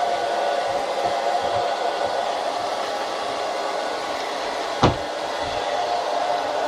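Panda X500 Pet Series robot vacuum running, its motor giving a steady whir. There is one sharp knock about five seconds in.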